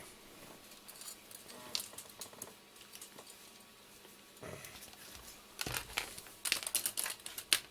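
Rustling and small clicks of things being handled on a workbench, growing busier in the last couple of seconds.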